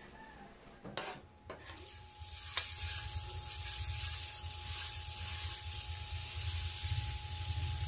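Food sizzling in a hot frying pan, starting about two seconds in after a couple of clicks, and then running steadily. A low steady hum sits underneath.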